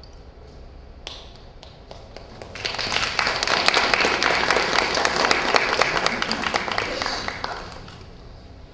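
Small audience applauding: a few scattered claps about a second in, then a burst of clapping for about five seconds that dies away.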